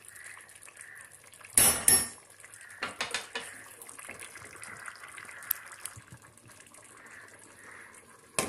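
A metal spoon stirring wet rice and chickpeas in a steel cooking pot, with two loud ringing clanks of the spoon against the pot about a second and a half in and a few lighter knocks after. Near the end a sharp clink as the pot's glass lid is set on.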